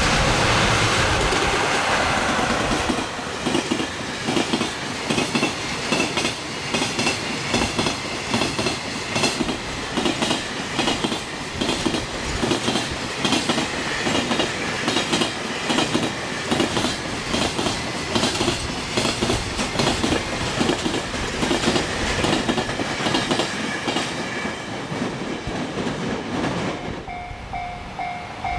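Freight train wagons passing at speed over rail joints: a fast, steady clickety-clack of wheelsets striking the joint gaps, loudest in the first few seconds. Near the end the train noise drops away, leaving the pulsing two-tone ring of the level crossing's warning bell.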